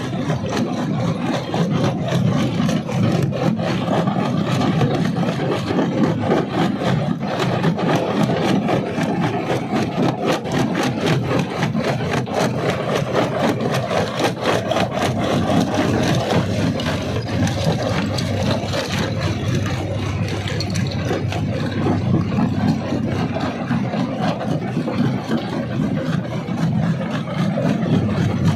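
Jaw crusher running under load: a steady machine drone, with rapid cracking and grinding of stone between the jaws.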